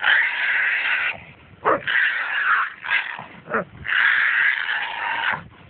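A caught feral pig squealing in three long, harsh screams of about a second or more each, with shorter cries that fall in pitch between them.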